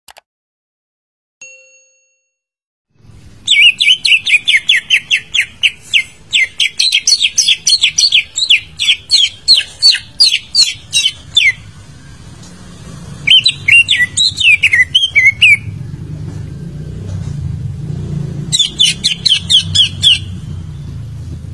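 A cucak ijo (green leafbird) singing: a long run of rapid, sharp chirps, about three a second, then a shorter warbled phrase and another chirp run near the end, over a low hum. This is a lure song played to set a silent cucak ijo singing.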